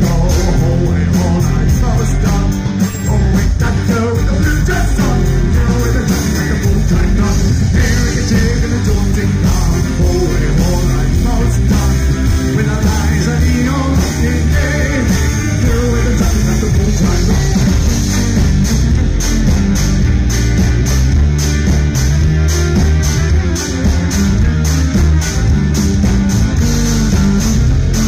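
Loud live folk-rock band playing fiddle, electric guitar, bass and drums, with a male singer on vocals.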